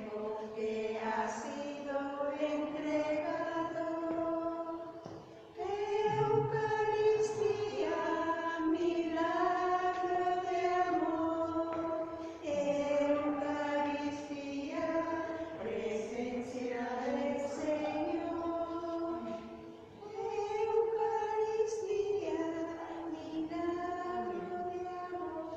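Voices singing a slow hymn in long sustained phrases, with brief pauses between phrases. Such singing is usual during the distribution of communion.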